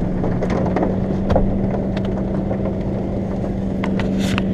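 Brush truck's engine running steadily, heard inside the cab as it drives across a muddy field, with scattered clicks and knocks from the cab and the rough ground.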